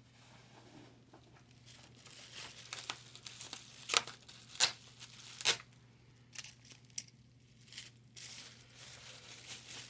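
Packaging of carded Hot Wheels cars being handled: crinkling and tearing of tape and plastic blister packs, with a few sharp clicks, the loudest about four to five and a half seconds in, and rustling again near the end.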